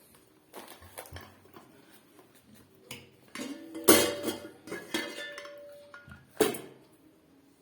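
Stainless steel pressure cooker being handled: metal parts knocking and clinking in several bursts, the loudest clatter about four seconds in leaving a metallic ring that lasts about two seconds, and a sharp knock near the end.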